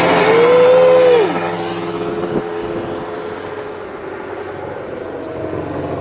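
Racing lawn mower engines running; one engine's pitch rises, holds high for about a second and then falls away, after which the engines run on more quietly.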